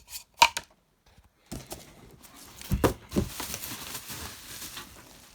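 Handling noise from cardboard packaging and fan parts: two light taps at the start, then, after a brief pause, steady rustling and scraping with a few soft knocks.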